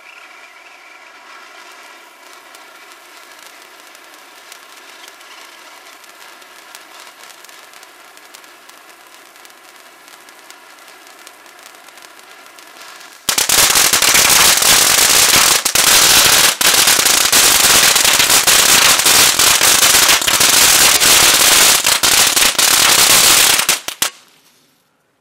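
Chainsaw-shaped firework fountain burning: a steady hiss of spraying titanium sparks for the first half, then about halfway through a sudden, much louder dense crackling from its crackling stars that runs for about ten seconds and cuts off near the end.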